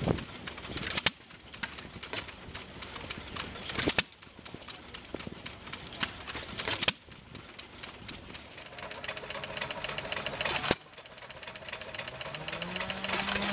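Antique engines running with a fast, steady mechanical clatter, heard in several short stretches that change abruptly every few seconds. Near the end a steady hum rises in pitch and then holds.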